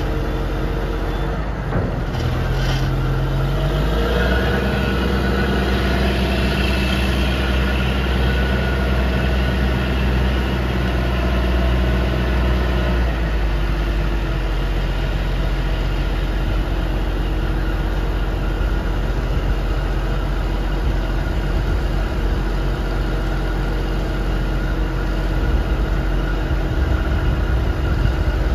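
A JCB 722 articulated dump truck's 240 hp Cummins diesel engine runs steadily, revs up a few seconds in to drive the hydraulic hoist raising the dump body, and holds the higher revs before settling to a lower steady run about halfway through.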